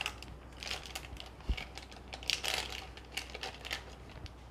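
Butter wrapper crinkling as it is squeezed and scraped with a spatula to empty soft butter into a glass bowl: irregular crackles in clusters, with a soft knock about a second and a half in.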